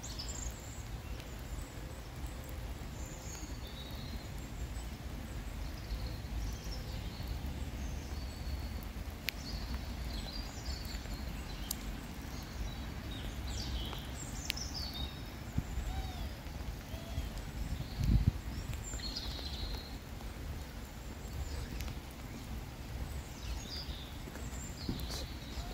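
Songbirds calling, with short chirps and whistles scattered throughout, over a steady low outdoor rumble. One loud low thump comes about eighteen seconds in.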